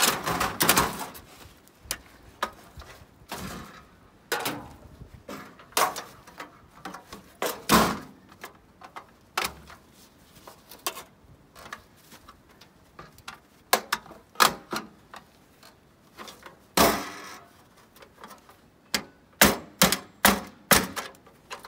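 Irregular clicks, knocks and clatter of a dryer's sheet-steel front panel and plastic door ring being handled and pried apart with a hand tool. Near the end comes a quick run of about six sharp clicks.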